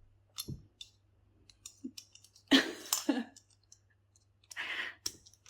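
Small scattered clicks from working the push button of a Kaweco SketchUp 5.6 mm brass mechanical pencil and handling its lead, with two louder bursts of noise about two and a half and four and a half seconds in.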